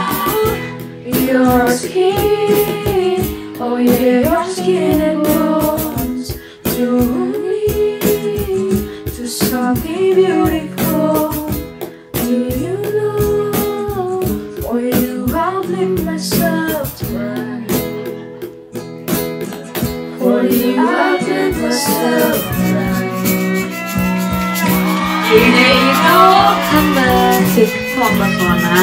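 Acoustic cover-band music: acoustic guitar with hand percussion, the beat tapped out in regular strikes, and voices singing a wordless melody. About two-thirds of the way through, the music changes to a brighter, busier texture.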